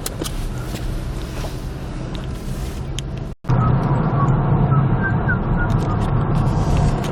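Road and engine noise inside the cab of a 2007 Chevy Colorado on the move, a steady low rumble. It cuts out briefly about three and a half seconds in, then comes back louder.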